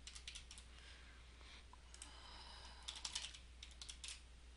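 Faint computer-keyboard keystrokes in a few short runs as a password is typed, over a steady low hum.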